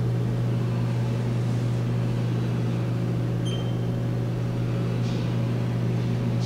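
Haas TM-1 CNC toolroom mill running under power while its head is jogged on the Z axis: a steady low hum, with a short high-pitched tone about three and a half seconds in.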